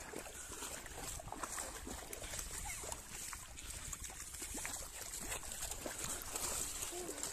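Shallow river water running and rippling, over a steady low rumble of wind on the microphone, with scattered faint ticks.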